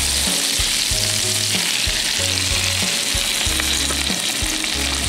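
Cobia throat frying in butter in a cast-iron skillet: a steady, continuous sizzle as the fillet is lifted and turned with tongs.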